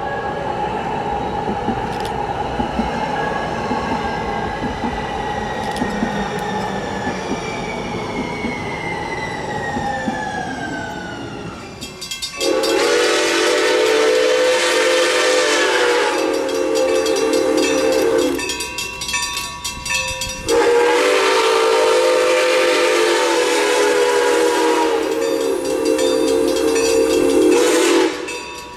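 A train running past, its tones slowly falling in pitch, followed by a locomotive sounding a multi-note chime in two long blasts and the start of a third.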